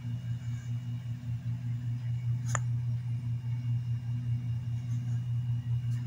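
Steady low hum of an electric fan running, with one sharp tap about two and a half seconds in.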